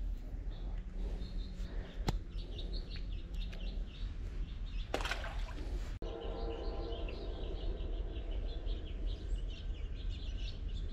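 Small birds chirping again and again over a steady low outdoor rumble. There is a short rush of noise about five seconds in, and a faint steady hum of several tones in the last few seconds.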